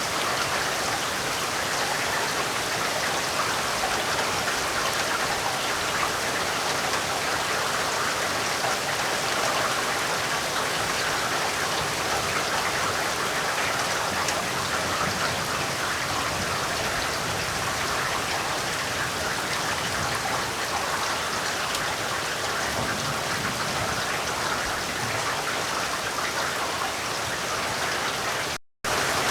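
Heavy rain falling steadily as a dense, even wash of drops, broken by a split-second drop to silence near the end.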